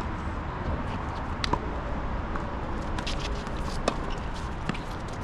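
Footsteps on a tennis court over a steady outdoor background, with a few sharp tennis-ball impacts, the clearest about a second and a half in and near four seconds in.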